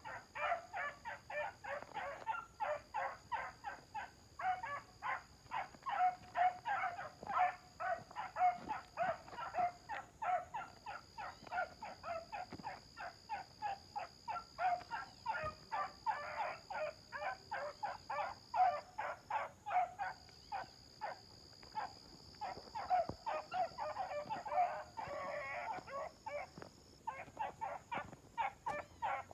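Four-month-old puppies barking in a fast, unbroken string of short barks, about three a second.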